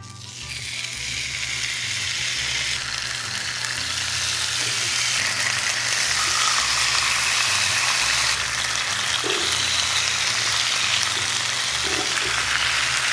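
Marinated pork pieces searing in a hot pan on medium-high heat: a loud, steady sizzle that swells over the first couple of seconds and then holds.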